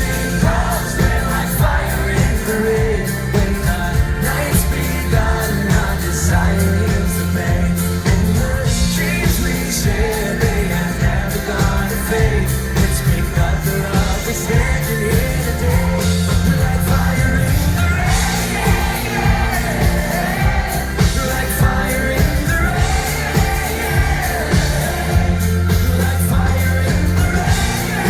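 Live pop-rock band playing loudly, with heavy bass and a steady drum beat, and singing over it that wavers up and down without clear words.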